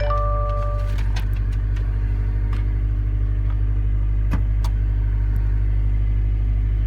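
2015 Subaru WRX STI's 2.5-litre turbocharged flat-four idling with a steady low rumble, marked by irregular sharp ticks: the engine knock that appeared at startup. A two-tone electronic chime rings for about the first second.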